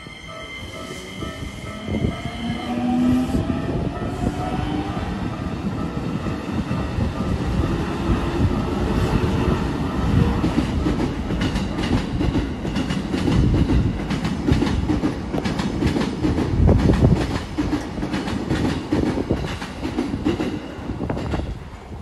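Trains passing a level crossing with the warning bell ringing. A red Keikyu electric train's motors whine up in pitch as it runs through. A JR commuter train then rolls past, its wheels clacking rhythmically over the rail joints in a steady rumble.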